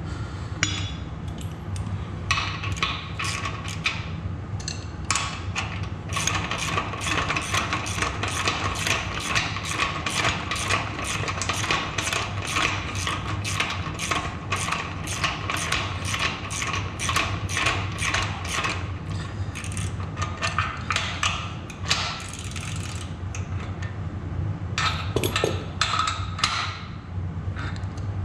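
Socket ratchet wrench clicking in a long run of quick, even clicks as a nut is tightened down onto a bolt, followed by a few clatters of metal tools being handled. A steady low hum sits underneath.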